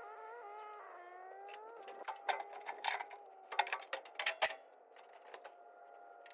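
A steady, high mechanical whine of several tones that shifts in pitch during the first second and a half, with a quick run of sharp metallic clicks and clanks from about two to four and a half seconds in.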